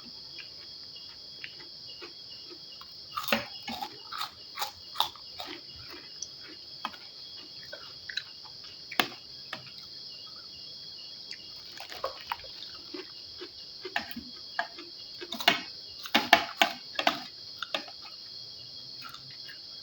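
Steady chirring of crickets throughout, with scattered clicks and crunches of eating: a spoon tapping a plate and the chewing of fried rice with raw shallots, busiest about three to five seconds in and again near the end.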